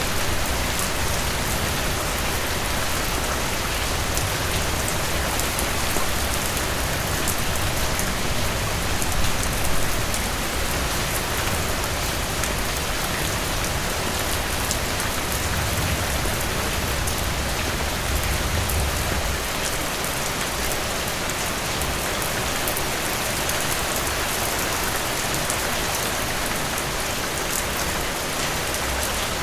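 Heavy rain pouring steadily: a dense, even hiss of rain on surfaces, with fine droplet ticks through it.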